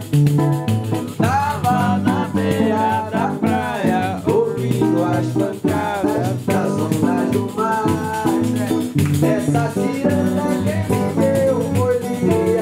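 Live ciranda song: acoustic guitar and a shaken rattle keeping the beat under a male voice singing.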